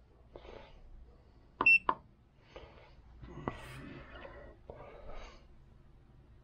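VDIAGTOOL BT500 handheld battery tester giving one short, high key-press beep a little under two seconds in. Faint handling noise and a click follow.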